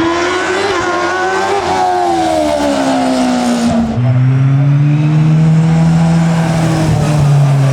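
Hillclimb racing car's engine at high revs; its note falls in pitch as the car goes by, then about four seconds in it changes to a lower, steady, strong engine note that rises a little and then eases off.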